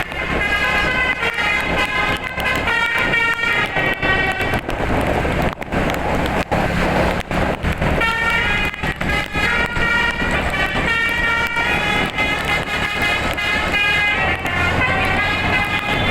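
Bus telolet horn, a multi-tone air horn driven by a DAV melody module, playing a tune in quickly changing notes. It breaks off for a few seconds in the middle, with a low steady rumble underneath.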